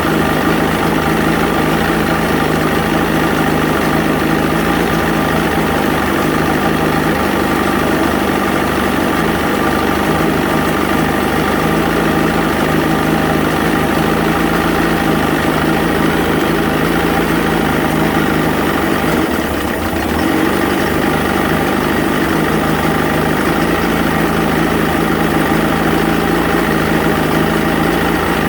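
1980 Johnson 115 hp two-stroke V4 outboard motor running steadily, with one brief dip in its running about twenty seconds in. The engine has a cough/sneeze problem.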